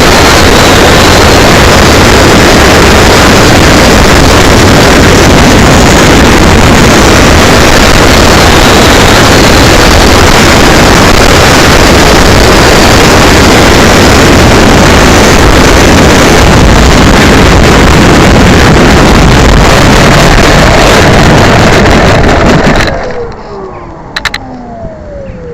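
Loud, overdriven rush of wind and propeller noise on the microphone of a keychain camera carried by an electric RC Cessna 182 model in flight. Near the end the noise drops off suddenly and a falling whine follows as the brushless motor and propeller spin down.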